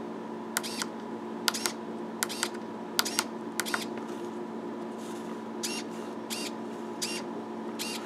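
About a dozen short clicks, several in quick pairs, from the tactile push buttons and the small hobby servo of a push-button servo controller, over a faint steady hum.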